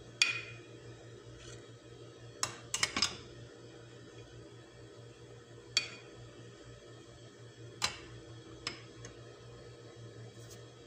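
Metal spoon clinking against a ceramic baking dish while spreading a cream mixture, with sharp separate clinks and a quick run of three about three seconds in, over a faint steady hum.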